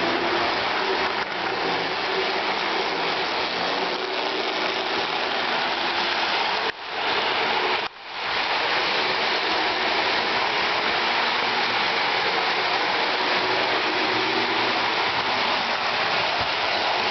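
Lionel 1948 No. 2026 Prairie steam locomotive and its passenger cars running on three-rail O-gauge track: a steady rushing rumble of wheels and motor, mixed with background sound effects from an MRC City and Country Sound Station. The sound drops out briefly twice, about seven and eight seconds in.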